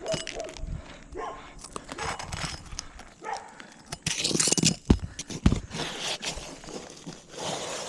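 Asphalt roof shingles and hand tools being worked: repeated knocks and taps, and a rough gritty scraping about four seconds in as a shingle is worked loose or slid into place. A dog barks a few short times near the start.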